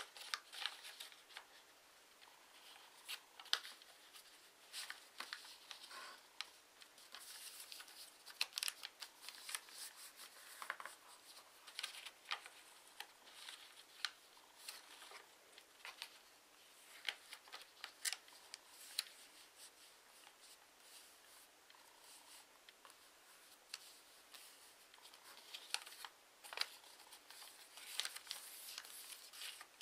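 A sheet of paper being folded and creased by hand on a tabletop: faint, irregular rustles and crisp crinkles as the folds are pressed flat.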